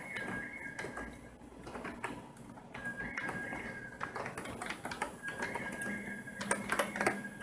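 Computer keyboard keys clicking in short irregular runs of keystrokes, with a faint steady high tone coming and going underneath.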